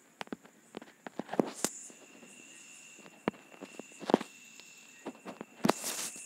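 About a dozen irregular sharp clicks and knocks, loudest a little over a second in, around four seconds in and near the end, over a faint steady high-pitched tone.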